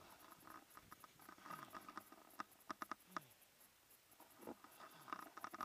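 Faint handling noise from gloved hands gripping and shifting on a camera pole: scattered light clicks, rubs and a few short falling squeaks.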